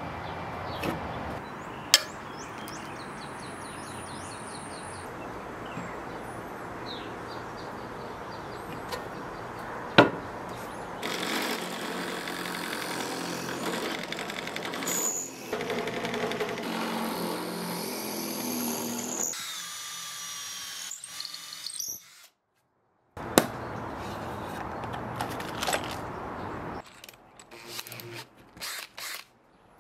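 Drill press boring a hole through a hardwood block, running steadily with a louder stretch partway through, and two sharp knocks in the first half. Near the end, short stop-start bursts from a cordless drill.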